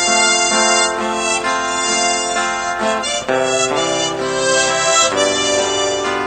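Background music: a melody of held reedy notes over chords, stepping from note to note.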